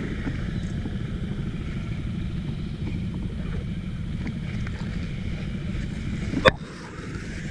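Scooter engine idling with a steady low rumble. A single sharp knock comes about six and a half seconds in.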